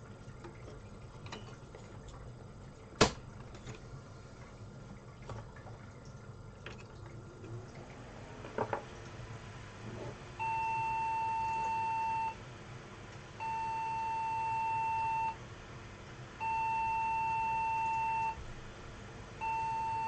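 Light clicks of memory sticks being seated in a Socket 370 motherboard's slots, with one sharp snap a few seconds in. About halfway through, the motherboard's speaker starts a POST beep code: long steady beeps of about two seconds each, repeating every three seconds, a pattern typical of the board not detecting its RAM.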